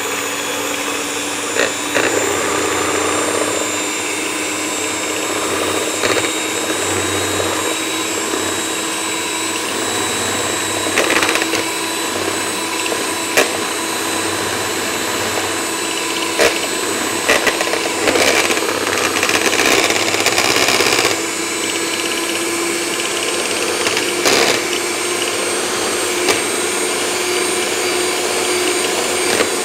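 Kenwood electric hand mixer running steadily, its twin beaters whisking egg whites in a plastic bowl, with scattered clicks of the beaters knocking against the bowl. The motor's hum holds one tone that creeps slightly higher over the run.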